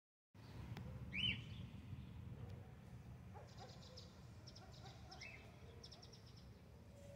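Birds chirping: a sharp rising chirp about a second in, another just after five seconds, and quick high twittering in between, over a faint steady low rumble.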